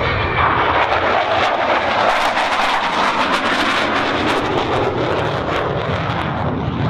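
Mikoyan MiG-29A fighter's twin Klimov RD-33 turbofans making loud, steady jet noise, with a ragged crackle through the middle of the pass.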